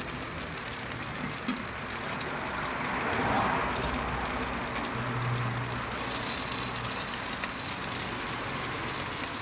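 Potstickers sizzling in oil in a frying pan: a steady crackling hiss that swells about three seconds in and turns brighter and crisper from about six seconds.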